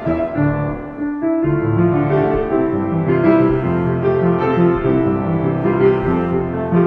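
Instrumental background music led by piano, in steady repeated notes; it fills out with lower notes from about a second and a half in.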